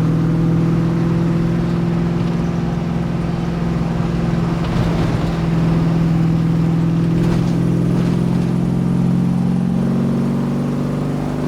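Swapped-in V8 engine of a 1977 Datsun 280Z running at steady cruising revs in top gear, a steady drone that barely changes pitch.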